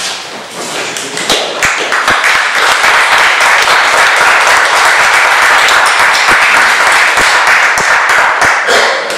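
Applause: a round of many people clapping, building over the first two seconds and fading out near the end.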